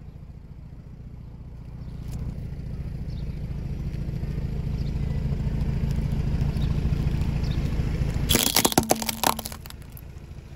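A car rolls in slowly, its engine and tyre rumble growing louder. Its tyre then runs over a pile of plastic toys and crushes them in a quick run of sharp cracks lasting about a second, near the end.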